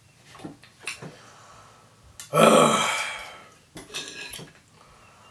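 A loud burp about two and a half seconds in, lasting about a second, amid the clicks and scrapes of a knife and fork working on a plate.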